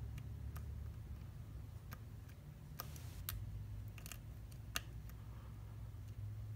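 Faint, irregular metallic clicks of a lock pick working the pins inside an Abus C73 padlock, over a low steady hum.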